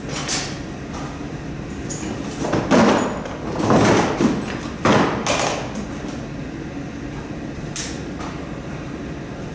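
Handling noise: a few short scrapes and knocks, the loudest cluster in the middle and a sharp click near the end, over a steady low background hum.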